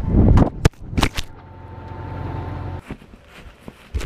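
A GoPro camera tumbling loose and hitting the ground: heavy knocks and rubbing right on its microphone with a few sharp impacts in the first second. A steady low machine hum follows and cuts off suddenly, then scattered bumps and another knock near the end.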